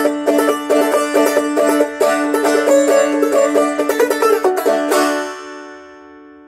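Banjo played clawhammer style, in C tuning capoed up to D: a quick run of plucked notes closing a Christmas carol medley. About five seconds in, a final chord is struck and left to ring and fade away. The tone sounded off to the player, who thinks the banjo needs new strings.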